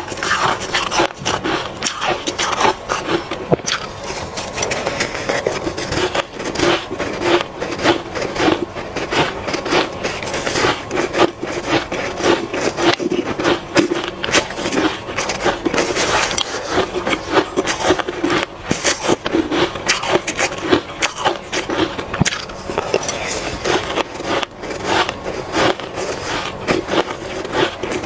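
Hard ice being bitten and chewed up close to the microphone: a continuous, dense crunching of many small cracks and grinding.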